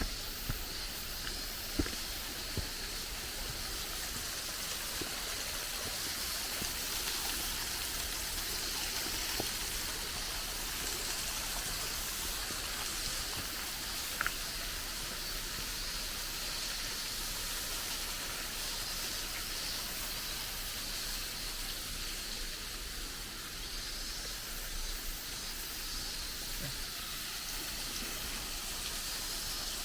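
Running water rushing steadily, with a few faint clicks over it.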